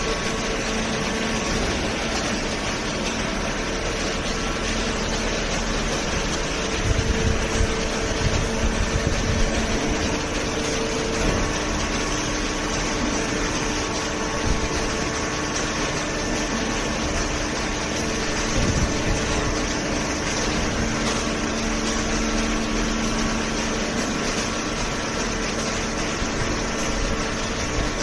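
Horizontal cardboard baler and its feed conveyor running, with a steady mechanical hum from the hydraulic power unit and drive motors. A run of knocks and clatter comes about seven to eleven seconds in.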